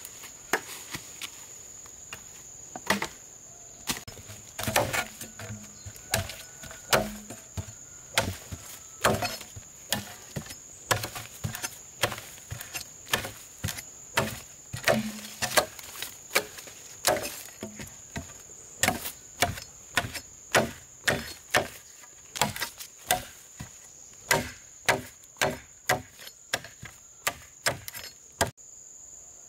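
Wood being chopped: sharp, irregular strikes about one to two a second, a few landing with a heavier thud. Insects keep up a steady high-pitched buzz underneath.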